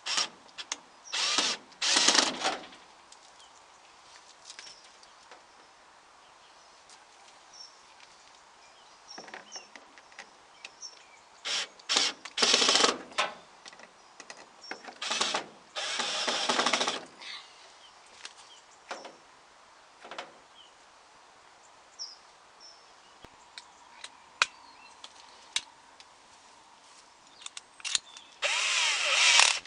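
Cordless drill running in short bursts, starting and stopping several times, while screws are driven to fix guttering in place. The longest run, about a second, comes near the end with a spade bit in the chuck.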